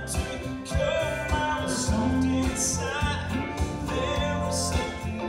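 Live country band playing, with a man singing lead into a microphone over a steady bass and band accompaniment.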